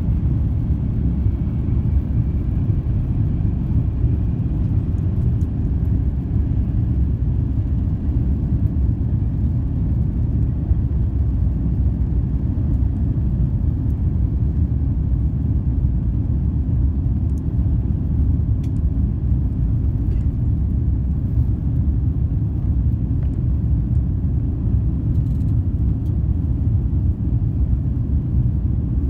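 Inside the cabin of an Airbus A350-1000 during takeoff and climb-out: its Rolls-Royce Trent XWB engines at takeoff thrust and the airframe make a steady, deep rumble.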